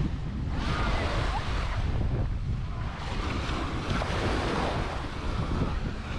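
Surf washing onto a sandy beach in swells, with wind buffeting the microphone as a steady low rumble.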